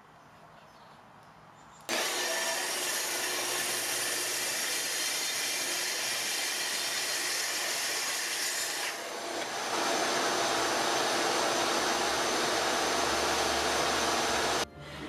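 Kreg plunge-cut track saw starting abruptly about two seconds in and running as it cuts along its guide rail through a solid red oak board. It dips briefly about nine seconds in, runs on a little louder, then stops suddenly near the end.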